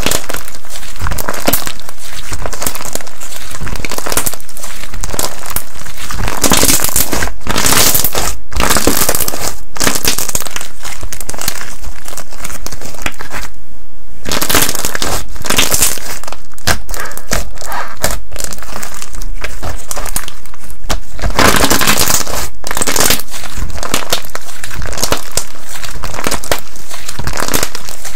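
Cocomo Slime's 'Big Milk Mini Melts' slime being squished and pressed by hand, giving a dense run of crackling, popping clicks. There is a short pause about halfway through.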